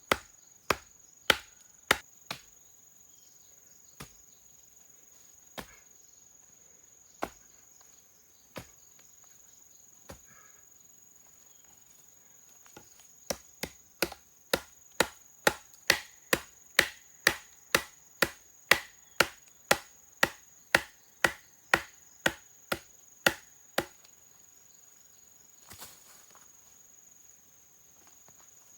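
Sharp chopping strikes, a few scattered ones at first and then a steady run of about two a second for some ten seconds, over a constant high insect trill.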